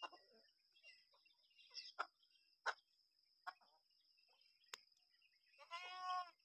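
A goat bleats once near the end, a short call of under a second. Before it come a few short sharp sounds, with a faint steady high-pitched tone underneath.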